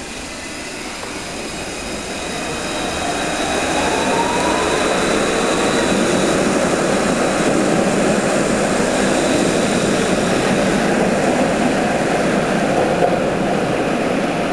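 Alstom Citadis 302 low-floor tram pulling away from the platform. Its electric traction motors give a whine that rises in pitch as it accelerates, and the sound grows to a loud, steady rumble of steel wheels on rail as the cars pass close by.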